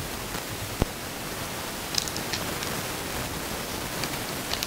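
Foil trading-card pack crinkling in the hands in a few short bursts, over a steady hiss. A single knock comes about a second in.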